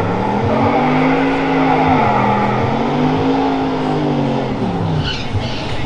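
Drag racing car engine at the starting line revving up and holding high revs, dipping briefly and revving up again, then dropping away near the end.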